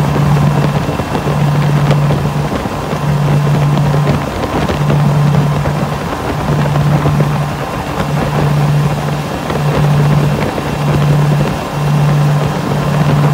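Twin Honda BF225 V6 four-stroke outboards running at speed, their low drone pulsing about once a second, over the rush of spray and wake water and wind on the microphone.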